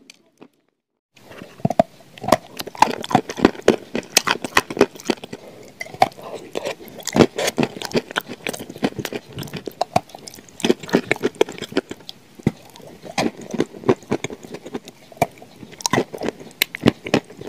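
Close-up chewing of soft clay eaten with chocolate spread: dense, irregular wet crunching and crackling clicks, after a brief silence at the start.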